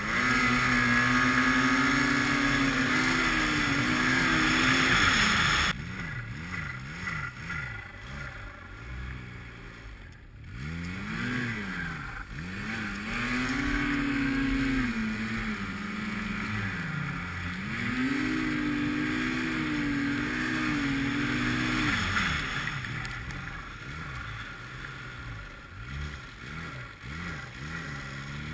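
Arctic Cat snowmobile engine pulling hard through deep powder: held at high revs for several seconds from the start, then cut off suddenly, blipped up and down a few times, held high again for several seconds, and easing to lower, varying revs near the end.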